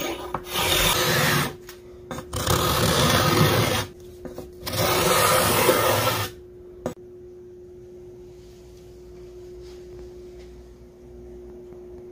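A curved card scraper drawn along a wooden canoe paddle shaft, three long scraping strokes of about a second and a half each, pulling off curls of wood. After about six seconds the scraping stops, leaving only a faint steady hum.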